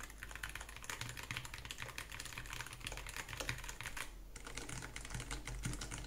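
Fast typing on Hall-effect magnetic-switch keyboards: a dense run of key clicks, first on a Varmilo Muse65 HE with Gateron White switches. After a short pause about four seconds in, the typing continues on a low-profile Nuphy Air60 HE.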